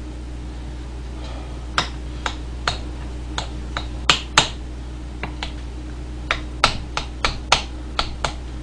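Metal spoon clinking and scraping against a ceramic bowl as rice is stirred and mixed, a run of irregular sharp clicks with a few louder knocks a little past the middle.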